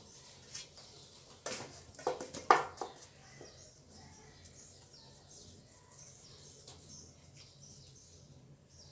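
A few short knocks and clinks of hands and dough balls against an aluminium pan, clustered about one and a half to three seconds in, with faint high chirps throughout.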